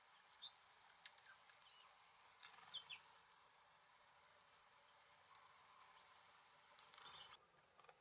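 Small songbirds at a feeder giving short, high chirps and chip calls, scattered and faint, with a few sharp clicks and a brief flurry of clicks and chirps about seven seconds in.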